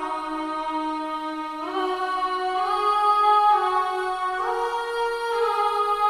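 Sustained chords from a sampled pad instrument, changing about once a second and sliding smoothly from one chord to the next.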